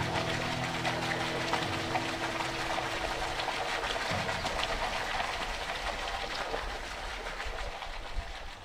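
Steady splashing of a stream of water pouring from a wall spout into a pool, fading out near the end. The tail of background music dies away in the first two seconds.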